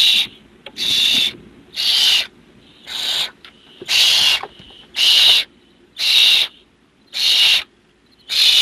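Barn owl nestlings making hissing food-begging calls, about nine in a row, each roughly half a second long and about a second apart.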